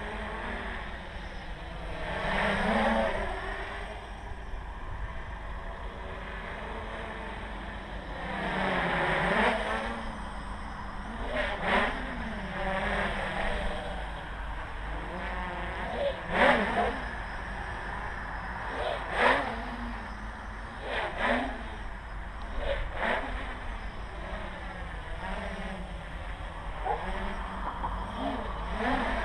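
Quadcopter's brushless motors and propellers whining steadily, with several sharp throttle surges that rise and fall in pitch, typical of flips and rolls. A low steady rumble runs underneath.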